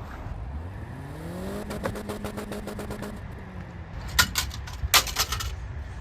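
Car engine revving sound effect: the pitch climbs for about a second, holds steady, then eases off. It is followed by two bursts of sharp clattering crash sounds, about 4 and 5 seconds in.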